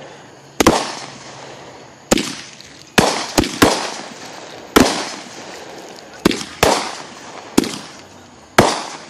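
Consumer fireworks going off in a string of about ten sharp bangs at irregular intervals, several in quick succession around the middle, each with a short echoing tail.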